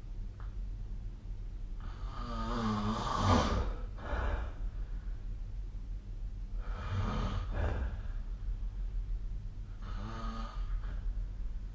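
A sleeping person snoring: three snoring breaths about four seconds apart, the first the loudest and longest, over a steady low hum.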